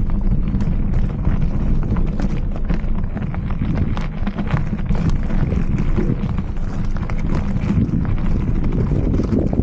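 Mountain bike being ridden over rough trail: steady wind buffeting on the microphone, with a dense run of clicks and rattles from the bike and its tyres over the ground.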